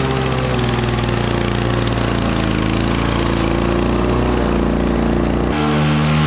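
Small petrol engine of garden power equipment running steadily, with an abrupt change in its tone near the end.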